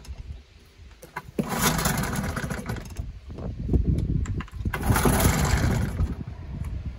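1979 Johnson 15 hp two-cylinder two-stroke outboard being started cold without choke. It fires about a second and a half in and keeps running, with two brief dips in the sound.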